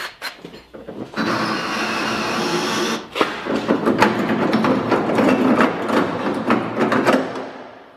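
A cordless drill running for about two seconds as it bores into the rusted steel door hinge of an old truck. This is followed by a few seconds of rough rattling and knocking metal as the seized, welded hinge is worked loose.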